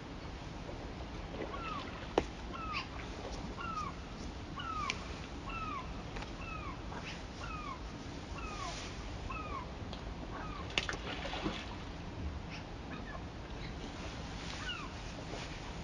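A bird calling over the steady rush of river water: a long run of short, arched, down-slurred notes at about two a second that thins out after about ten seconds. A single sharp click about two seconds in.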